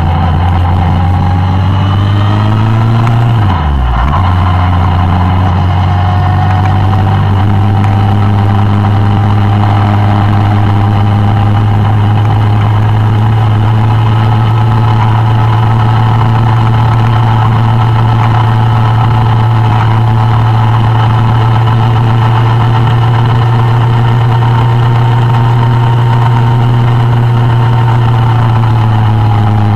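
Suzuki Bandit 1200 inline-four engine running under way on a motorcycle, heard from the bike. The revs climb gently, dip sharply for a moment about three and a half seconds in, then hold a steady cruising note and ease down slightly near the end.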